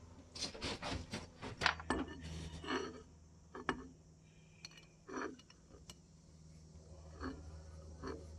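Small metal parts being handled: a quick series of clinks and knocks for the first three seconds, then scattered single knocks, over a steady low hum.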